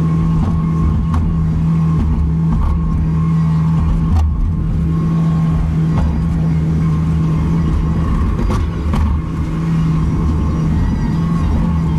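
Bobcat T770 skid steer's diesel engine running steadily under load, heard from inside the cab, with a handful of sharp knocks and clanks from the loader and bucket as it works the snow.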